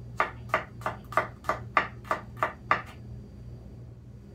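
Kitchen knife slicing garlic cloves thinly on a wooden cutting board: about nine quick, even knife strokes, about three a second, then stopping.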